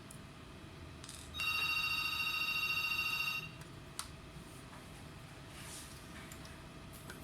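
A telephone ringing: one electronic ring of about two seconds, a steady high trill, starting about a second and a half in. A single sharp click follows about four seconds in.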